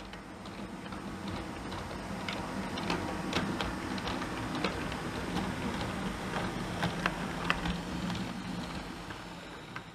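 OO gauge model diesel multiple unit running past close by: a steady low hum with irregular sharp clicks as its wheels cross the rail joints, growing louder as it nears and fading near the end.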